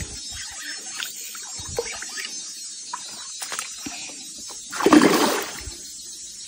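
A hooked trairão (giant wolf fish) thrashing in shallow creek water against the line. There is light sloshing and small ticks at first, then one loud splash about five seconds in.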